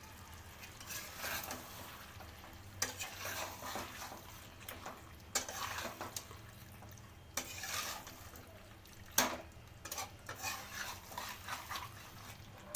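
A spoon stirring and scraping chicken in thick masala in a cooking pot, in irregular strokes, with a few sharp knocks of the spoon against the pot.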